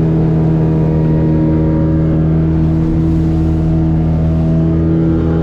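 Mini speedboat's engine running steadily at cruising speed, a constant drone that holds its pitch, with water rushing along the hull.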